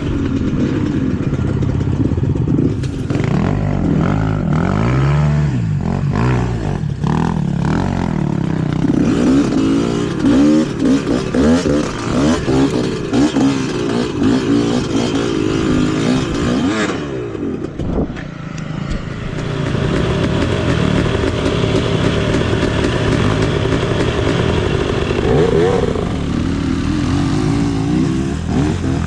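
Off-road trail motorcycle engine running under way, its pitch rising and falling as the throttle is worked, with clattering knocks over the first several seconds. It eases off briefly past the middle, then picks up again.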